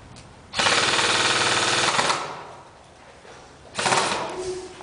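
Airsoft gun firing two fully automatic bursts: a rapid rattling buzz about one and a half seconds long starting half a second in, then a shorter burst near the end.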